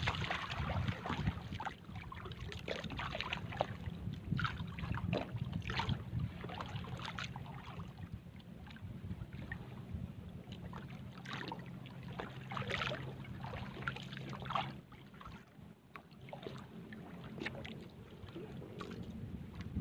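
Small bangka boat's motor running steadily as the boat moves over the water, with splashing of water against the hull. The motor hum drops away about 15 seconds in.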